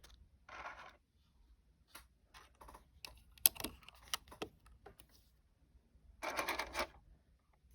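Plastic Lego pieces being handled: scattered clicks and clacks of bricks knocking together, the sharpest about three and a half seconds in, with two short rustling bursts, one about half a second in and a longer one near the end.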